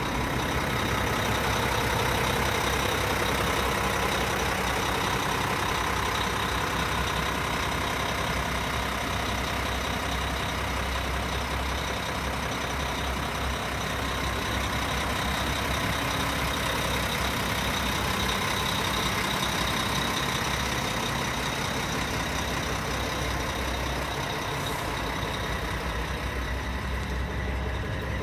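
Mack Quantum truck's diesel engine idling steadily.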